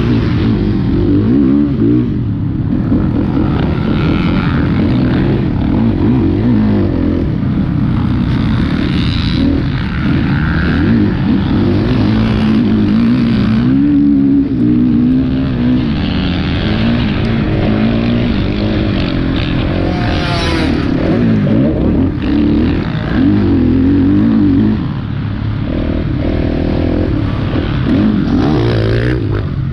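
Dirt bike engine heard from on board while riding a motocross track, its pitch rising and falling as the throttle opens and closes, with one sharp rev about two-thirds of the way through.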